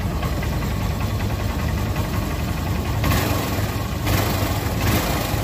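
Honda Unicorn motorcycle's single-cylinder engine idling steadily just after starting on fresh synthetic oil following an engine flush, left unrevved while the oil climbs to the head. A brief rise in hiss comes about three seconds in.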